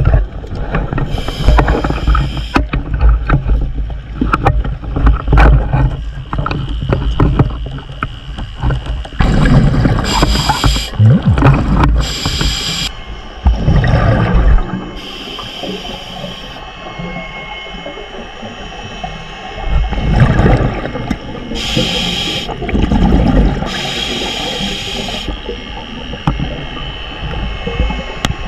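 Underwater sound of a scuba diver breathing through a regulator: bursts of exhaled bubbles every few seconds over a low, surging water rush.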